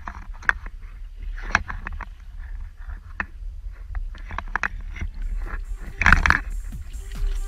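Small waves lapping and slapping against the hull of a drifting small boat, with many short irregular splashes and one louder splash about six seconds in.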